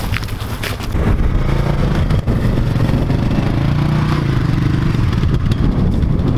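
A motor vehicle's engine running steadily with a low rumble that gets louder about a second in, with some light clatter.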